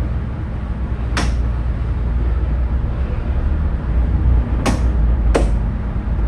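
Ship's engines running with a steady low drone heard on the bridge. Three short, sharp clicks cut across it, one about a second in and two close together near the end.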